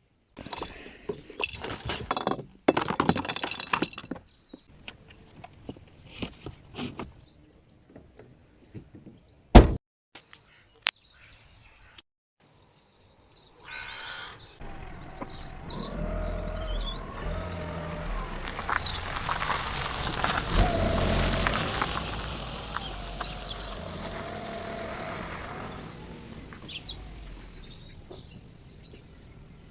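Rustling and clatter, with a single sharp knock about ten seconds in, then a car's steady low rumble that builds from about halfway and fades toward the end.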